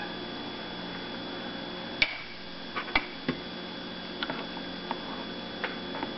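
A plastic spoon stirring dry malt extract into water in a small saucepan, knocking and scraping against the pan in about eight irregular clicks from about two seconds in, over a steady faint room hum.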